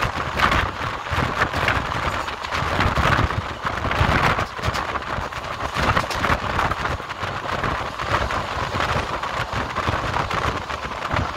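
Moving passenger train heard from an open coach window: a steady rush of wheel and rail noise with constant rattling clicks, mixed with wind on the microphone.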